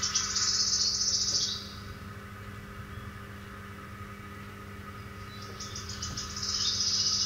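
Recording of a wood warbler's song played back through a small handheld speaker. There are two high phrases, each a run of notes speeding up into a shivering trill: one at the start and another beginning a couple of seconds before the end.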